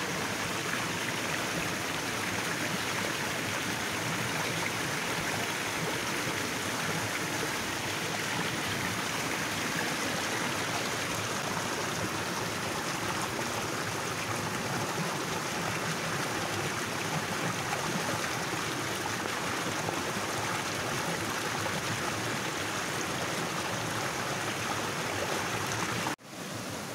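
Shallow, rocky river rushing over stones: a steady, even sound of flowing water that drops out briefly near the end.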